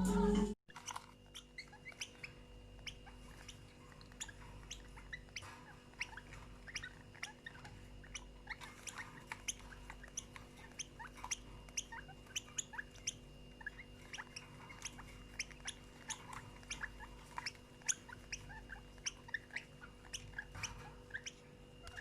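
Small cage birds chirping: many short, high chirps, several a second, over a faint steady hum.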